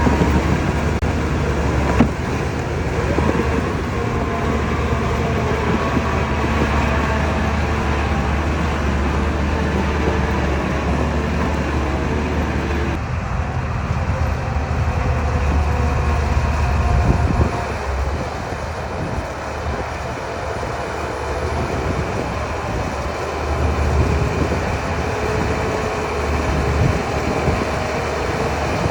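DH17C3 crawler bulldozer at work: its diesel engine running under load with a steady low drone, mixed with a heavy mechanical rumble. The sound changes abruptly about halfway through.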